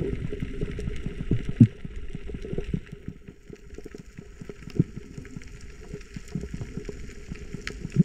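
Muffled water sloshing and bubbling, with many irregular small knocks.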